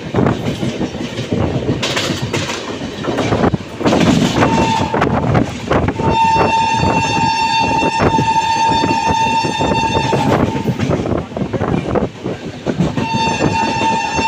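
Passenger train wheels rumbling and clattering over rail joints and junction points, heard from an open coach doorway. A locomotive horn sounds one long steady blast from about four seconds in until about ten seconds, and starts again near the end.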